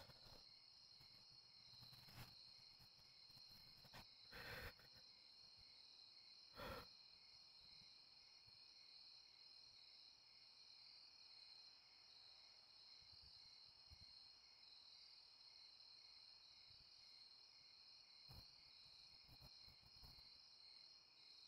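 Faint night chorus of crickets, a steady high trilling. A few soft clicks in the first seven seconds and one more near the end.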